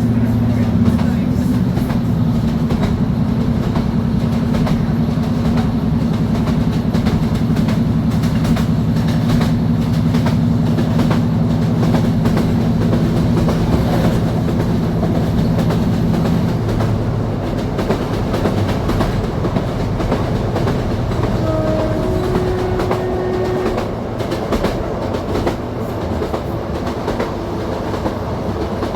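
Class 153 Sprinter diesel railcar heard on board: its underfloor Cummins diesel engine running steadily under power while the wheels click over the rail joints. A little over halfway through the engine note drops to a lower, quieter tone as the power eases off, and a couple of brief higher tones sound shortly after.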